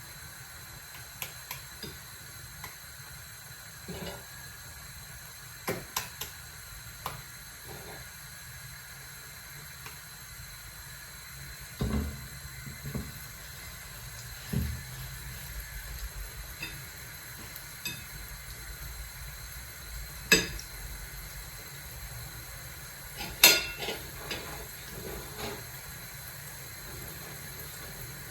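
Kitchen utensils clinking and knocking against dishes and a frying pan, a scattering of sharp clicks with the loudest two near the end. Under them runs a steady hiss of oil sizzling in the pan.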